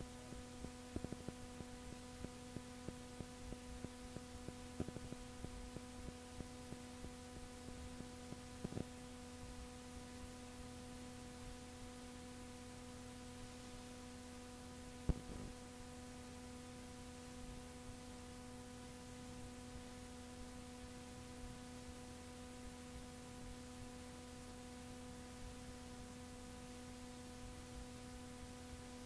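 Steady electrical hum with a faint hiss under it, the noise floor of an old cassette recording after the talking has stopped. A few faint clicks in the first several seconds and one louder click about 15 seconds in.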